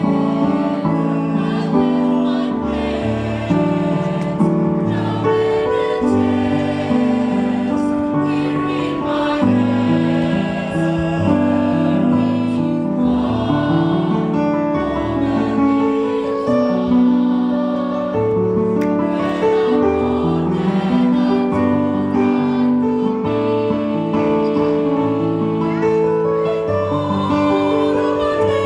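A small mixed choir of men and women singing in several-part harmony, with long held notes.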